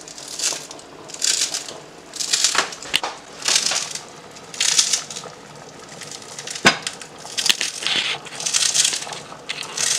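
Fresh coriander being chopped, a crunchy cut about once a second, with one sharp click about two-thirds of the way through.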